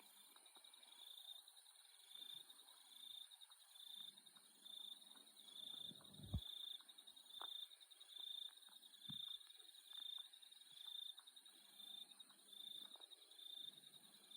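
Australian night-time insects: a chirp repeating about every 0.7 s over a steady high-pitched insect drone, faint and even. A soft low thump sounds about six seconds in.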